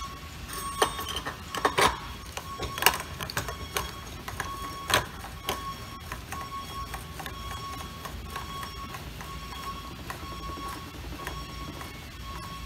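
Metal parts of an MWD pulser lower end clinking and scraping by hand as the spring is fitted and the assembly is put back together, with a few sharp knocks in the first five seconds and softer clicks after. A steady faint high tone runs underneath.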